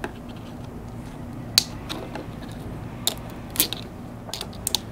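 Plastic corrugated split loom tubing being handled and worked over a bundle of wires, giving irregular sharp clicks and crinkles, with several in quick succession near the end.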